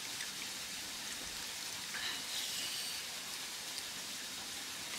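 Steady background hiss with a few faint ticks.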